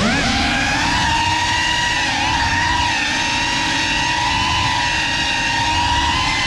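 GEPRC Cinelog 35 cinewhoop's brushless motors and propellers throttling up from the floor, the whine rising in pitch at the start and then holding a loud, steady high whine with small dips as it flies.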